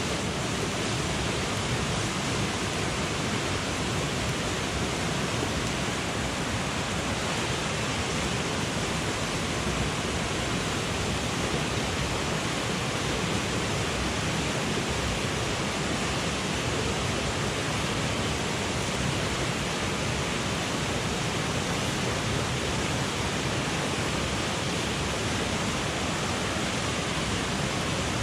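Steady rush of a mountain headwater stream, an even unbroken noise of flowing water.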